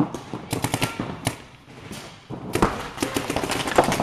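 Paintball markers firing reball rounds in rapid strings of sharp shots, several a second: one run in the first second or so, a short lull, then a denser string of shots in the second half.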